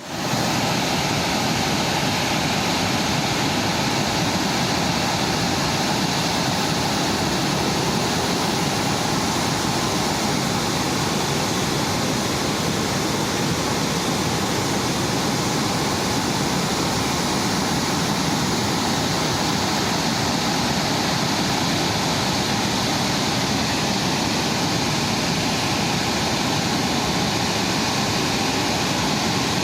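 Steady rush of the Ghaggar River in spate after heavy rain: fast-flowing floodwater making a constant, unchanging noise.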